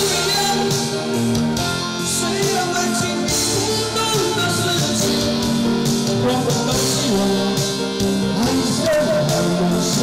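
A man singing into a handheld microphone over amplified backing music with guitar.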